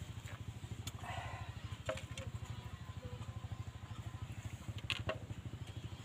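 Small engine running steadily, a rapid, even low putt-putt, with a few sharp clicks about one, two and five seconds in.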